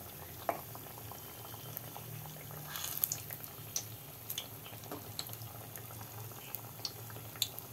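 Thekua deep-frying in hot oil in a kadhai: a steady sizzle with scattered crackles, and light clicks as a steel spoon turns the cakes.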